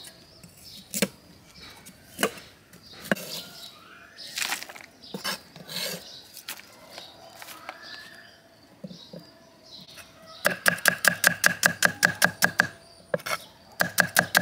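Large knife chopping shallots on a wooden chopping block: two runs of fast, even strokes, the first starting about two-thirds of the way in and the second near the end. Before them, only scattered small clicks and handling noises.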